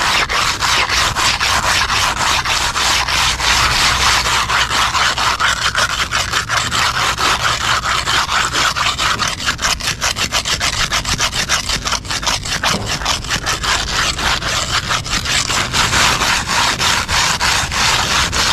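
Fiber float scrubbing back and forth against the wetted face of a concrete slab edge: a steady, gritty rubbing in quick, even strokes, several a second, which works the face to a smooth rubbed finish.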